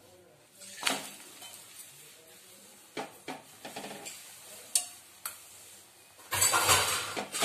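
Metal spoon clicking and scraping on a hot tawa as oil is spread over a flatbread, with a few separate sharp clicks. Near the end comes a louder stretch of clatter and sizzle lasting about a second.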